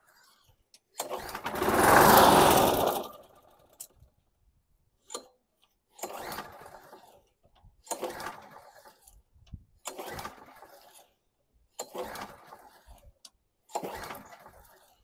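A 1998 Craftsman mower's small engine being pull-started. About a second in it fires briefly in one loud burst. After that comes a run of recoil-starter pulls about every two seconds that turn it over without it catching, a starting problem the owner puts down to the carburettor.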